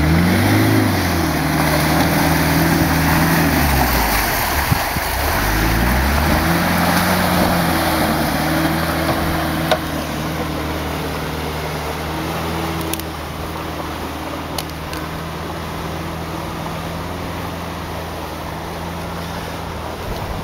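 An off-road 4x4's engine revving up and down as it pushes through deep muddy water, with splashing and sloshing from the wheels. The engine then settles to a steady note and the sound grows somewhat quieter.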